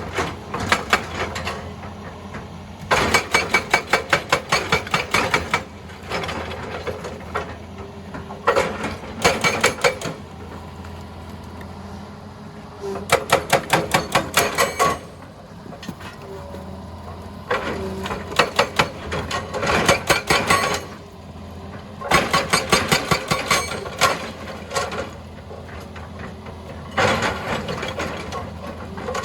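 Hitachi EX200 excavator's hydraulic breaker hammering rock in short runs of rapid blows, several a second, with pauses between them. The excavator's diesel engine hums steadily throughout.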